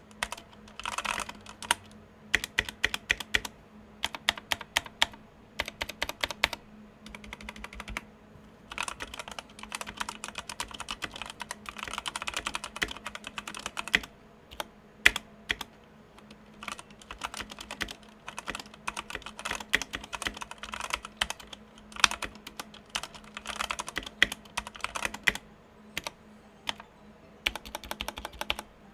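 Redragon K552 mechanical keyboard being typed on, with its case foam-modded and its stabilizers lubed. Runs of fast keystrokes are broken by short pauses and a few single louder presses.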